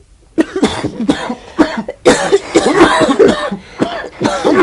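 Repeated coughing and throat clearing, a smoker's cough, starting about half a second in and going on in a quick series of loud coughs.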